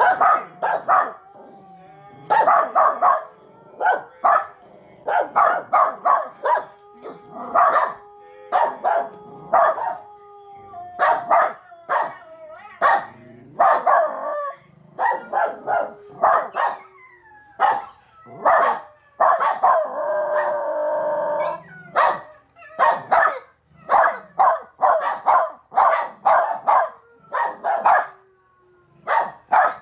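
Miniature Australian Shepherd puppy barking and howling over and over. Bursts of short barks and yips mix with drawn-out howls that glide in pitch, and one longer howl comes about twenty seconds in.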